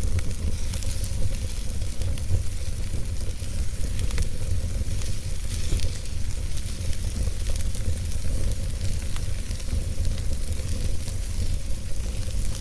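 Fire in a fireplace crackling, with many small sharp pops and a steady hiss over a constant low rumble.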